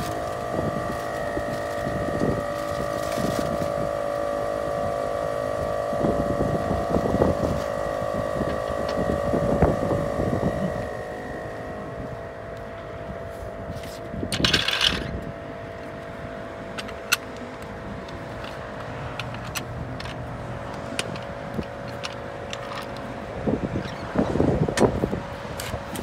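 Clanks and knocks of a spare tyre and a steel floor jack being handled and set in place, over a steady mechanical hum that stops near the end. Near the end comes quick clattering as the floor jack's handle is worked to lift the car.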